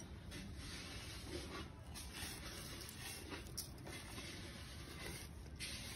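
Faint soft rustling and light pattering as salt is sprinkled by hand onto chopped banana flower florets in an aluminium bowl.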